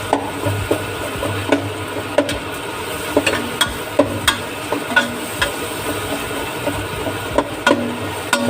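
Onions sautéing in melted margarine in a pan, a steady sizzle, with a utensil stirring and tapping against the pan in sharp clicks about once or twice a second over a low steady hum.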